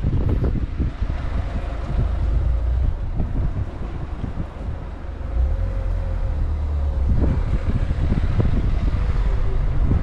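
Wind buffeting the microphone: a loud, gusty low rumble that dips briefly about halfway through.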